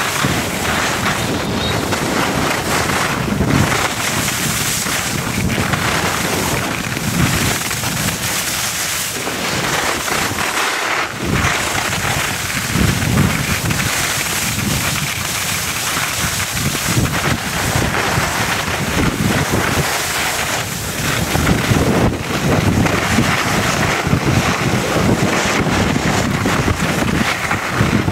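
Wind rushing over the microphone during a fast ski descent, mixed with the hiss and scrape of skis carving over packed snow. Low surges come every second or two.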